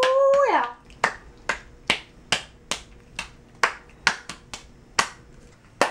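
A person's hands and a capuchin monkey's hands slapping together in patty-cake: a steady run of sharp claps, about two to three a second. It opens with a short held vocal note that falls away.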